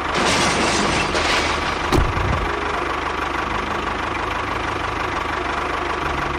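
A small engine running steadily, with a single sharp knock about two seconds in.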